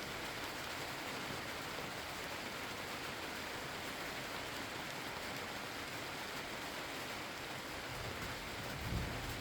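Steady rain falling, with a low rumble of thunder building near the end and swelling to a peak just before the end.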